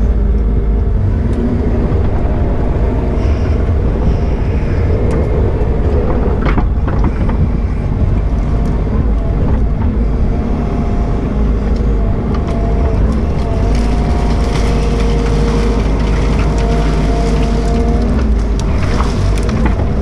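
Bobcat E42 mini excavator's diesel engine running steadily under load, heard from the operator's seat, with a hydraulic whine that shifts in pitch now and then as the bucket digs out brush and small trees. Occasional sharp cracks of roots and branches breaking.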